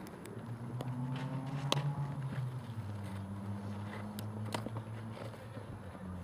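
A motor vehicle's engine hums steadily, its pitch stepping down about halfway through. Two sharp pops, a softball smacking into a leather glove or off a bat, come at about two seconds and four and a half seconds in.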